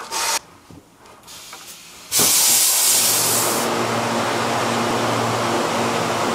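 A brief crackle of plastic wrap at the start, then a loud steady hiss that starts suddenly about two seconds in and settles into a steady rush with a low hum beneath it.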